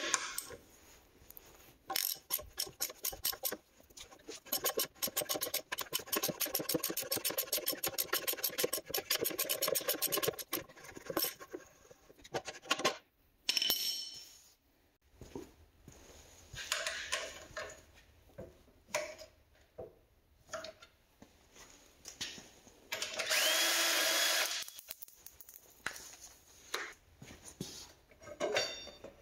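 Hand-tool and power-tool work while jacking up a motorcycle. A long run of rapid, even clicking lasts several seconds. Then come scattered knocks and short bursts of a power tool running, the longest about two seconds, with a slight rising whine.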